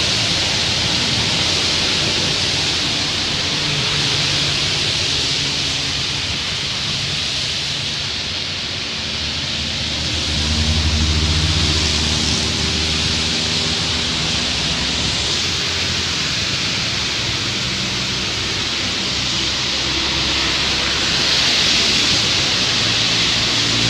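Heavy rain and tyres hissing through standing water on a wet road, with the engines of trucks and other traffic passing; the loudest engine goes by about ten seconds in, and another near the end.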